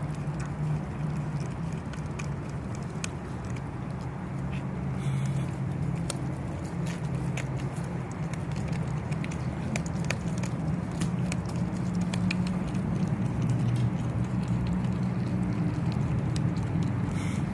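A dog chewing and crunching on a whole raw halibut, bones and skin cracking in small irregular clicks, over a steady low hum.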